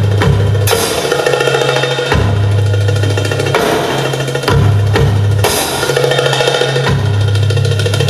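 Dance music with a drum-kit beat and a low bass line holding long notes.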